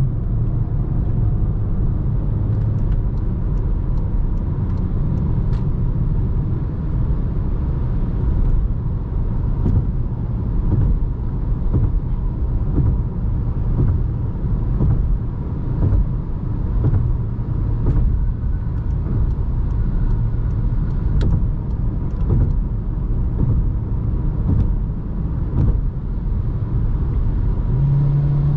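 A 2020 Volkswagen Jetta's 1.4 TSI inline four-cylinder engine and its tyres in city driving: a steady low rumble with scattered light knocks, the engine note growing stronger near the end.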